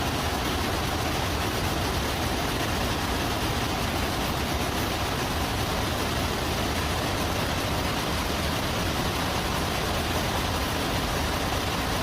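Steady, even machine noise, like a motor running, with no distinct blows or rhythm.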